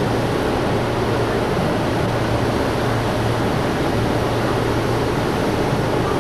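Hurricane wind and weather noise: a loud, steady rushing with no breaks.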